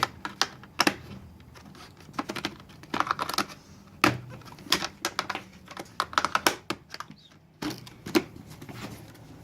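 Hard plastic clicks and knocks of an outer visor being pushed into the side pivot mechanism of an IV2 953 modular motorcycle helmet and snapped into place. The sharp clicks come in irregular clusters throughout.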